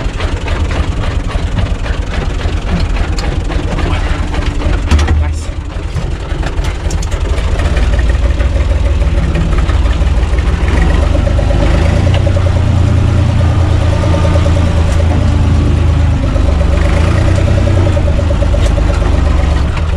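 UTB Universal 445 tractor's four-cylinder diesel engine running as the tractor is driven, heard from the cab; it runs nicely. There is a clunk about five seconds in, after which the engine runs louder, with a steady whine over it in the second half.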